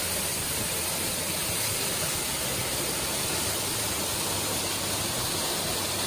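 Waterfall cascading down sloping rock: a steady rush of falling water.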